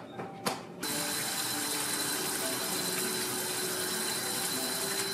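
Kitchen tap running onto gloved hands rinsing in a stainless steel sink: a steady hiss of water that starts about a second in, after a short click.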